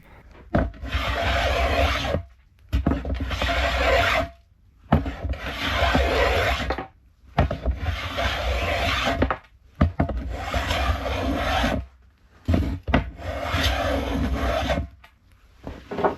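A hand smoothing plane shaving along a pressure-treated softwood handle to round off its square edges. About six long strokes, each lasting a second and a half to two seconds, with short pauses between them.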